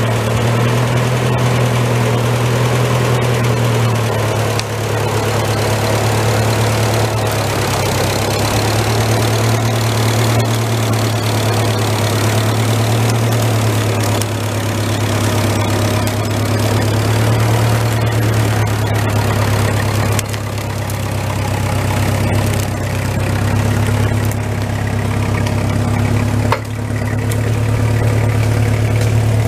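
Massey Ferguson tractor engine running steadily as it drags felled ash logs out of the woods, with a few brief dips in level.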